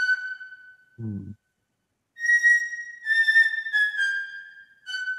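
Single high flute-like notes from the notation software's sample playback, sounding one at a time as notes in the score are selected and edited. After a pause, four short notes step down in pitch. A brief low hum comes about a second in.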